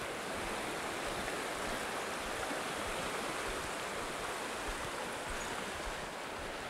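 Goat River rushing steadily over its shallow, stony bed: an even rush of flowing water.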